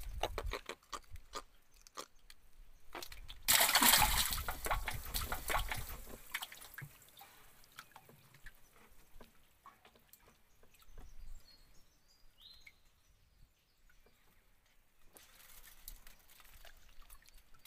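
River water splashing and sloshing at the side of a small wooden boat as a fishing hand line is jerked through it and recast. The splashing is loudest for about two seconds, starting three and a half seconds in, with a weaker stretch near the end and a few light clicks.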